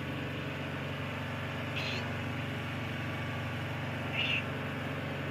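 Two short, faint, high-pitched mews from young kittens, about two seconds in and again a little after four seconds, over a steady low background hum.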